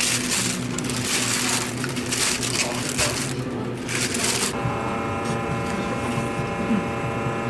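Thin plastic takeaway bag crinkling and rustling as iced drink cups are slid into it. It stops abruptly about two-thirds of the way in and gives way to a steady hum made of several tones.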